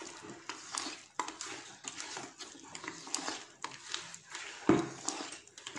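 A hand kneading thick teff batter in a plastic bowl: irregular wet squelches and slaps, with one louder thump about four and a half seconds in.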